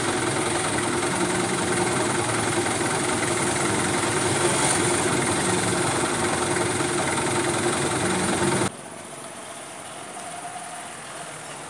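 City street traffic with a vehicle engine idling close by, a steady hum under the street noise. About nine seconds in it cuts off suddenly to a much quieter street background.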